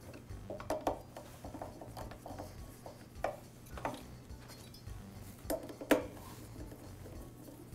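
Screwdriver driving the screws of the intake insulator and gasket into a Husqvarna backpack blower's cylinder: scattered light metallic clicks and clinks of the tool and screws, the loudest about six seconds in.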